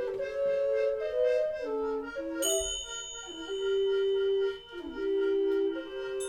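Instrumental music: a reedy, sustained melody moving in steps from note to note, with a bright bell-like ding struck about two and a half seconds in and another near the end, each ringing on.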